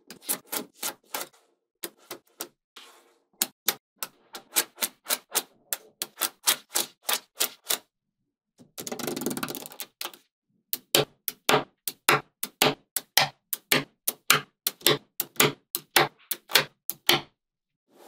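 Small magnetic balls snapping together with sharp clicks, about three a second, as rows of balls are pressed onto a magnetic-ball block. About nine seconds in the clicks pause for a second and a half of scraping noise.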